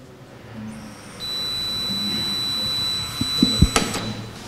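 Stationary breathalyser kiosk sounding a steady high-pitched tone for about three seconds while a person blows into its mouthpiece through a straw. The tone means 'keep blowing', and it stops once enough breath has been sampled. A few dull knocks and a click come near the end.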